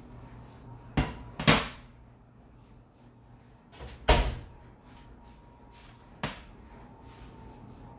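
Glass baking dish set down on a granite countertop with two clacks, then an oven door shut with a heavy thud about four seconds in, and one lighter knock near six seconds.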